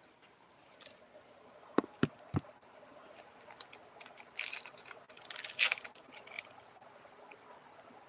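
Handling noise from a phone camera being moved and set in place: three quick light clicks about two seconds in, then a few bursts of rustling near the middle.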